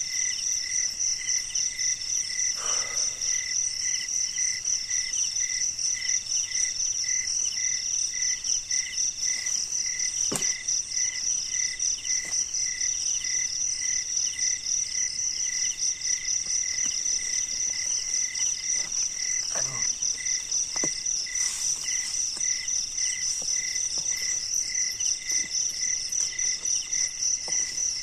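A chorus of night insects calling steadily: a dense, high, rapidly pulsing trill over a lower chirp that repeats a couple of times a second. A few faint knocks break in here and there.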